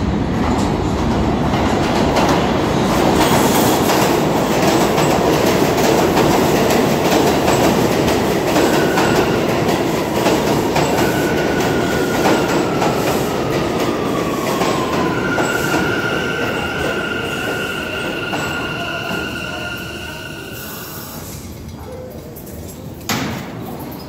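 R179 subway train pulling into the station: a loud rumble of wheels on rails as the cars pass, then a whine falling in pitch as it slows. A steady high squeal follows as it brakes and cuts off about 21 seconds in when the train stops. A sharp knock comes near the end.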